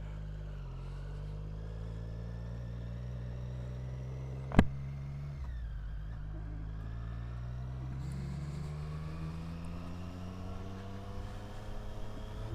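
Triumph Street Triple 765 R's three-cylinder engine running on the move, a steady note with one sharp click about four and a half seconds in, after which the pitch dips and then climbs steadily as the bike accelerates.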